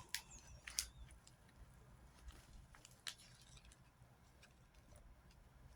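Slime being handled and squished by hand: faint, scattered small pops and clicks, a few in the first three seconds, then near silence.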